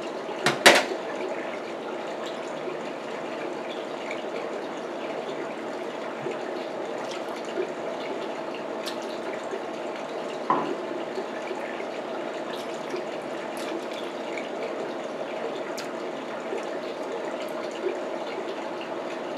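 Steady even background noise with scattered small clicks and knocks from eating crab legs at the table. The loudest comes just under a second in, a metal spoon clinking against the small glass sauce bowl, with another knock about ten seconds later.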